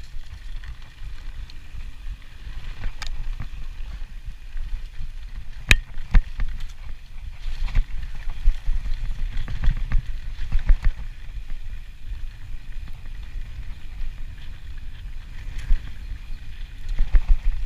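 Mountain bike riding fast down a dirt trail: a steady low rumble of wind on the microphone and tyres on dirt, with scattered sharp clicks and knocks as the bike rattles over bumps.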